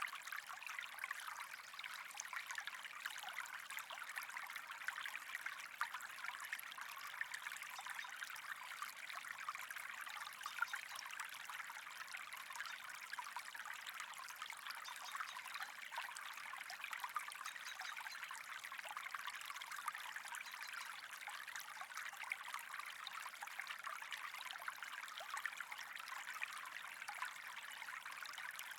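Steady trickling, running water, with faint fine crackling throughout.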